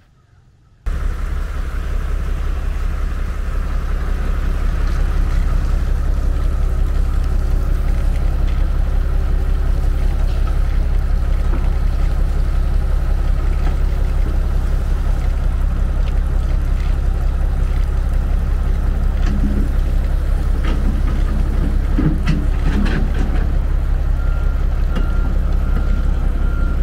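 A heavy engine starts running steadily about a second in, a deep, even rumble heard close up. A few knocks come about three quarters of the way through, and a quick repeated beep starts near the end.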